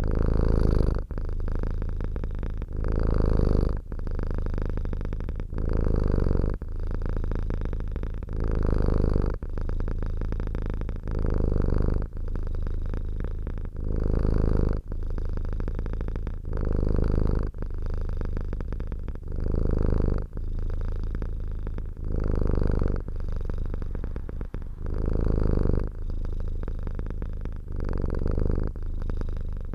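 Domestic cat purring close up, a continuous low rumble that swells louder about every two and a half to three seconds with each breath.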